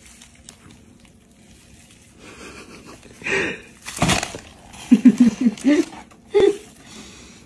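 A person's breathy, wheezing laughter. A couple of sharp breaths come about three and four seconds in, then a quick run of laughing pulses near five seconds and one more shortly after.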